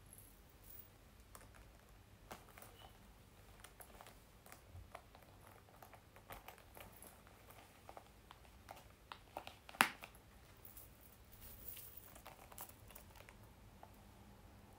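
Faint handling of a small quilted leather bag: light rustles and small clicks, with one sharp click of the metal flap clasp about ten seconds in. Thin metallic clinking of the gold chain strap follows near the end.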